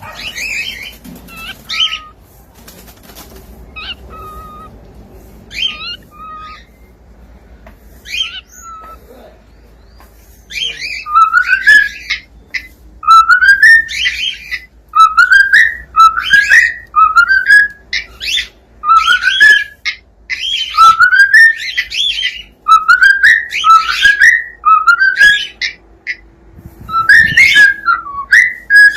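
Cockatiel whistling and chirping: soft, scattered chirps at first, then from about ten seconds in a loud run of short rising whistles, roughly one a second.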